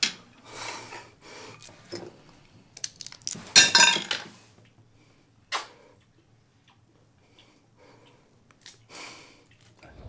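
Dishes, glasses and chopsticks clinking and clattering on a dinner table, with one loud sharp clatter about three and a half seconds in, then only a few faint clinks.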